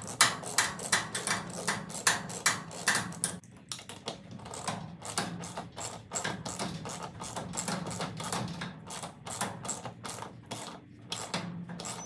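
Light metallic clicks and taps, about three to four a second, from a hand tool working the garage door opener arm's mounting bracket as the bracket is being refastened.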